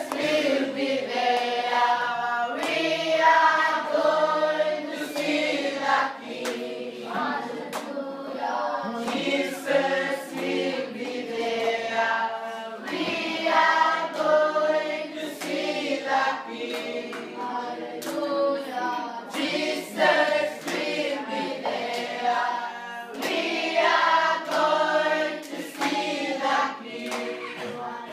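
A group of schoolchildren singing together without instruments, with hand claps among the singing.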